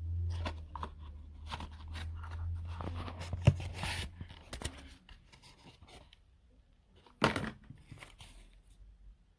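Rustling and clicking handling noises, with a sharp click about three and a half seconds in and another short burst about seven seconds in. A low hum stops about five seconds in.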